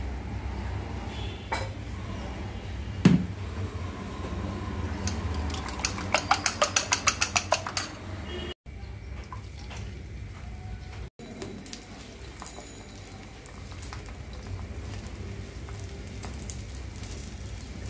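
Metal kitchen utensils clinking: one sharp clink about three seconds in, then a quick even run of about a dozen clinks, roughly five a second, for two seconds. Near the end, beaten eggs sizzle faintly as they fry in hot oil in a black iron frying pan.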